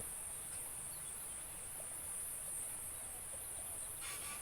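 A steady, high-pitched chorus of insects with a slight pulsing. A short rasp sounds near the end.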